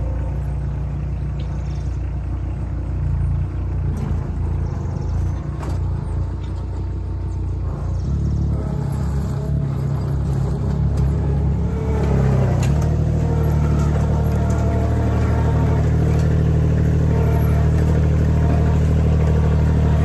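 Cormidi tracked mini skid steer's engine running steadily. The note changes about 8 seconds in and gets louder about 12 seconds in, with a few knocks.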